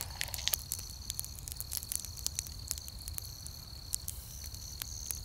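Open fire burning in a concrete ring pit, crackling with irregular sharp pops, over a steady high chirring of night insects.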